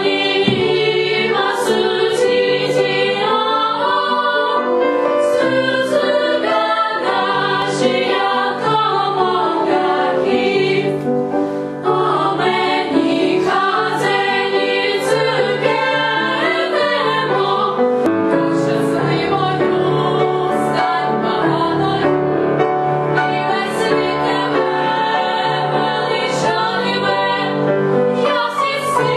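Girls' choir singing, several voices holding and moving between sustained notes together.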